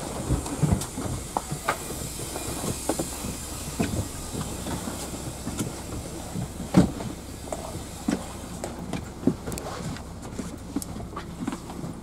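Ride noise heard from inside a moving vehicle: a steady low rumble and hiss with many irregular knocks and rattles, the loudest about seven seconds in.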